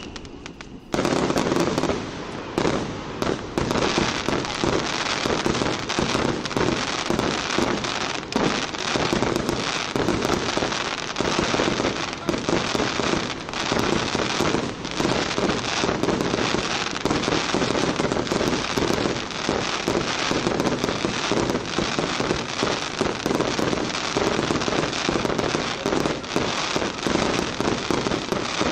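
Fireworks display: after a brief lull, a dense, continuous barrage of aerial shell bursts starts suddenly about a second in, with rapid bangs and crackling that run on without a break.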